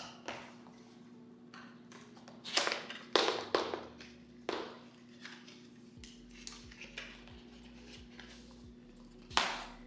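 Cardboard product box being handled on a table: short scrapes, rubs and knocks of the box and its sleeve, strongest a few seconds in and again near the end.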